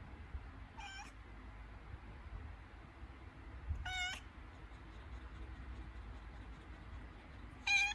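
Tabby cat in labour meowing three times, short cries a few seconds apart, the last one the loudest.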